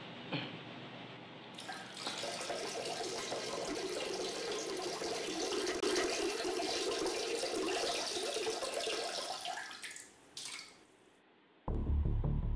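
Bathroom washbasin tap running, water splashing into the basin, starting about a second and a half in and stopping near the end. Then a sudden deep rumble starts.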